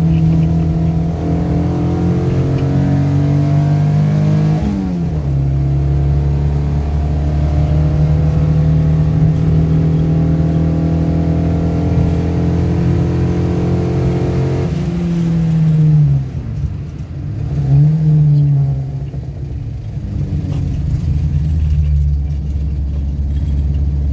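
Simca 1100's four-cylinder engine running under load, heard from inside the cabin. Its pitch steps down about five seconds in, falls away around fifteen seconds, rises and falls once briefly near eighteen seconds, then runs lower.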